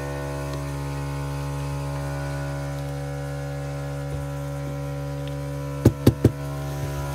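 Steady electrical hum, with three quick sharp knocks in a row about six seconds in.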